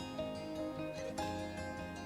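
Background music: plucked acoustic guitar.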